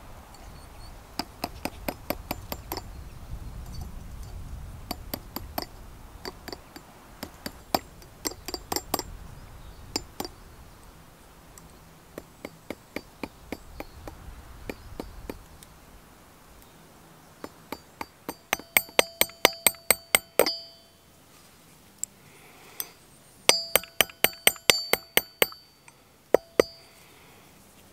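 Small hammer striking copper wire on a small steel anvil, cold forging it, in quick runs of light blows. In the runs near the end the anvil rings clearly after each blow.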